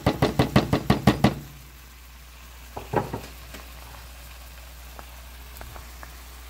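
A quick even run of light taps, about seven a second, as chopped onions are knocked out of a plastic container into the hot pot, stopping about a second and a half in. Then beef broth sizzling faintly around a browned beef roast, with a single knock about three seconds in.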